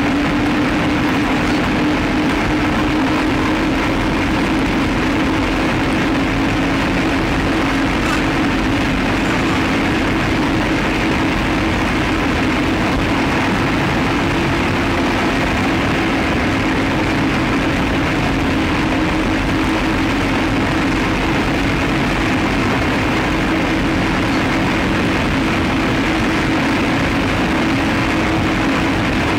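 Steady in-car drone of a car's engine and tyres on the highway, picked up by a dashcam, with a constant low hum under an even rushing noise.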